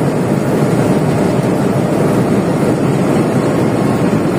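Steady engine and road noise of a moving truck, heard from inside its cab while it cruises along the highway.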